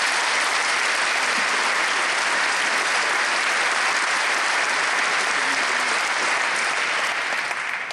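Audience applauding: steady, dense clapping that eases off near the end.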